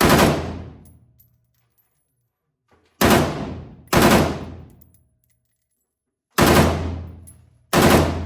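Five single gunshots fired at uneven intervals, two of them about a second apart, each followed by a ringing echo that dies away over about a second.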